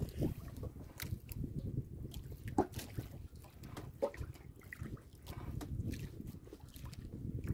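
Sea water lapping and sloshing against a small wooden boat's hull, with scattered drips and light clicks.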